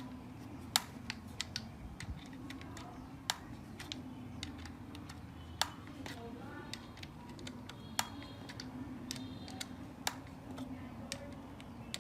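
Irregular light clicks and taps of small metal parts and hand tools being handled during assembly of an electric concrete drill, a few sharper knocks among them, over a steady low hum.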